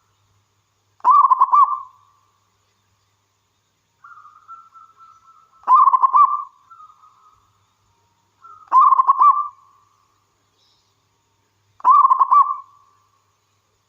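Zebra dove (perkutut) cooing: four loud, rolling coo phrases about three seconds apart, with softer cooing before and after the second one.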